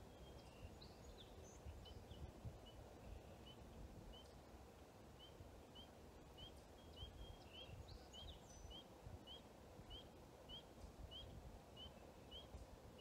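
Faint outdoor ambience with birds calling: a short, high rising chirp repeats nearly twice a second from about two seconds in, with a few other scattered chirps.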